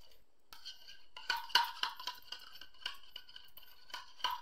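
Eggs being beaten by hand with a utensil in a bowl: quick, irregular light clinks and scrapes of the utensil against the bowl.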